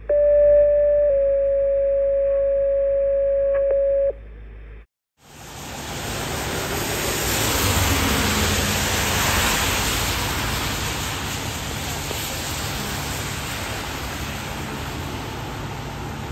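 Two-tone dispatch alert over a radio: one steady tone for about a second, then a slightly lower tone held about three seconds, cutting off about four seconds in. After a brief cut, a car passes on the wet road, its tyre and engine noise swelling to a peak and fading into a steady road hiss with a low engine hum.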